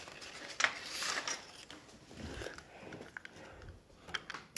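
Handling noises as a Hornby model tender is picked up and set on the track: rustling of paper packaging, then a few light plastic clicks near the end as the tender goes onto the rails.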